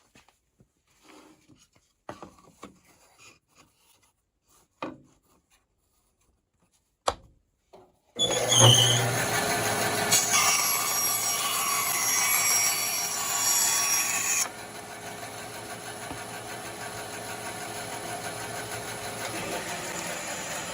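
A few light knocks of wood being set against the jig, then a bandsaw switched on about eight seconds in, its motor humming and blade running. The blade cuts through wood for a few seconds; about six seconds later the cut ends abruptly and the saw keeps running freely at a lower level.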